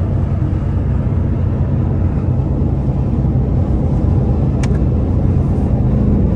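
Cabin sound of a 2021 Ford Mustang Mach 1 cruising at highway speed: the 5.0-litre V8 drones steadily under the tyre and road rumble. A light click comes about four and a half seconds in.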